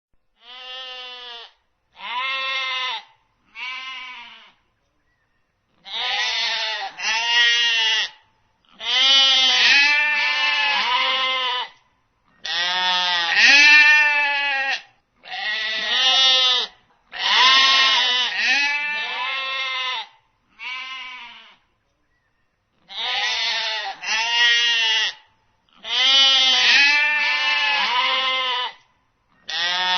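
A flock of sheep bleating: one wavering, quavering call after another, often two or three overlapping, with short silent gaps between groups of calls.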